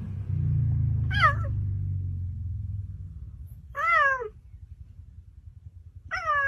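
A cheetah giving three short, cat-like meowing calls, each rising briefly and then falling, a couple of seconds apart. A low rumble runs under the first half.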